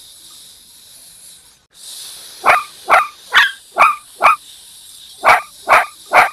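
Dog barking: eight short barks in two quick runs, five and then three, over a steady high hiss.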